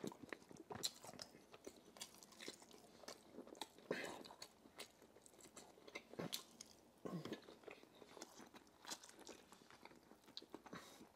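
Faint close-miked chewing of roast chicken dipped in pepper sauce: scattered wet mouth clicks and small crunches at an uneven pace.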